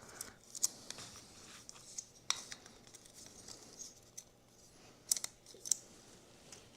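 Scattered small clicks and ticks of bolts and hand tools being handled while an exhaust header is bolted onto a model-airplane engine, with a close pair of clicks after about five seconds.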